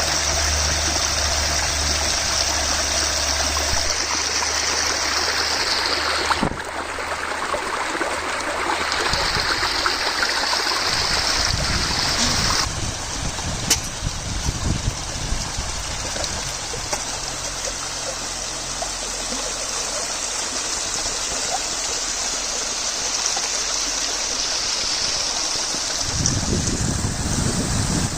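Spring-fed mountain stream running: a steady rush and trickle of flowing water, which changes in tone abruptly twice, about six and twelve seconds in.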